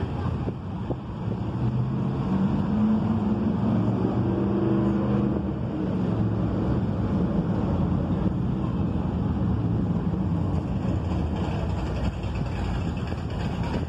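A car engine running close by, a low, steady rumble that swells about two seconds in and fades out after about ten seconds.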